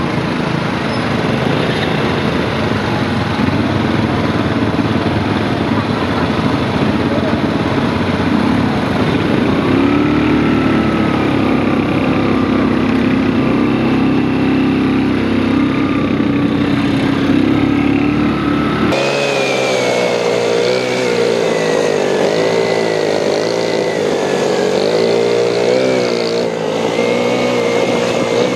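ATV engines running while riding off-road, their pitch rising and falling with the throttle. About two-thirds of the way through, the sound changes abruptly to a higher, more wavering engine note.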